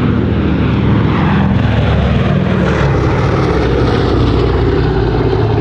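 Four-engine WWII bomber flying past, its radial piston engines and propellers droning steadily and loudly.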